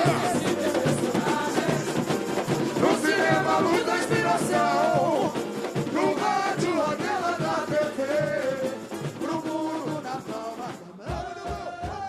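Samba-enredo sung by a chorus of voices over a samba bateria's steady drum pulse. The sound grows quieter and thins out near the end.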